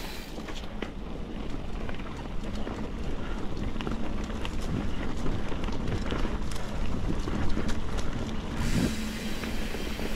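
Mountain bike rolling fast along a dirt singletrack, with wind rumbling on the camera microphone and the tyres running over the ground. Scattered sharp clicks and rattles from the bike run throughout.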